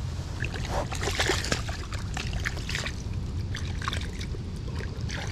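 Lake water splashing and sloshing in irregular bursts as a freshly caught channel catfish is rinsed off by hand at the water's edge.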